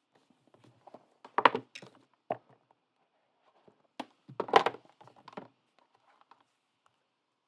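Trading cards and packs being handled on a table: scattered light clicks and two short louder bursts of scraping and knocking, about three seconds apart.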